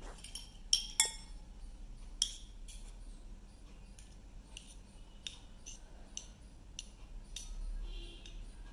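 Small steel spoons clinking and scraping against each other, a string of light metallic clicks, as garlic paste is scraped off one spoon with another; the two loudest clinks come about a second in.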